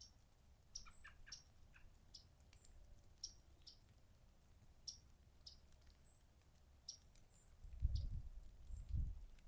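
Yellow-rumped warblers and robins calling in the background: a string of short, sharp chip notes, roughly one or two a second, with a few lower notes about a second in. Two low rumbles come near the end.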